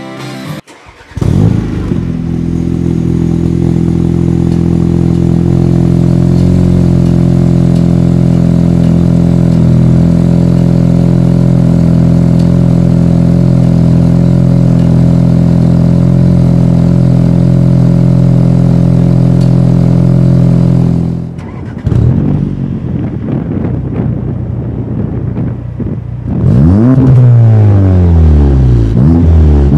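Audi A4 B9 allroad exhaust, straight-piped through a catless downpipe, a Vibrant bottle-style resonator and a Vibrant Street Power muffler. The engine starts about a second in and idles loudly and steadily for about twenty seconds. Then it is revved in repeated blips, rising and falling in pitch, and the blips grow louder and quicker near the end.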